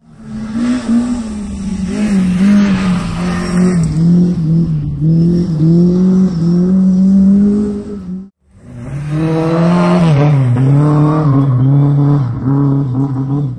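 Rally car engines under hard acceleration, the pitch climbing and dropping again and again. The sound cuts off abruptly about eight seconds in and a second run of engine revving begins straight after.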